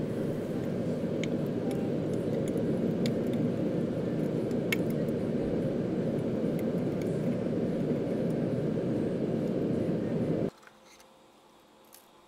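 Hot custom pliers jaws quenched in a tin of oil, the oil hissing and bubbling as a steady rushing noise with scattered sharp crackles. The noise stops abruptly about ten and a half seconds in, leaving faint room tone with a single click near the end.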